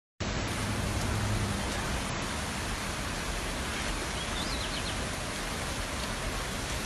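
Brown floodwater rushing and churning past a riverbank: a steady, even rush of water.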